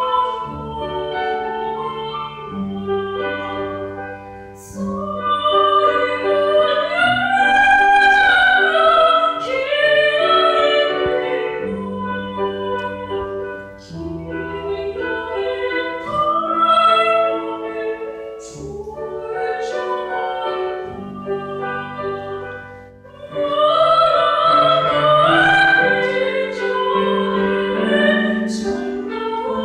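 A high classical soprano voice singing with vibrato over piano accompaniment, swelling on long held high notes between phrases.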